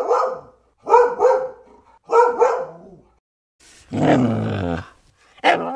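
Dog barking: a single bark, then two pairs of quick barks about a second apart, a longer, lower-pitched call about four seconds in, and one more bark near the end.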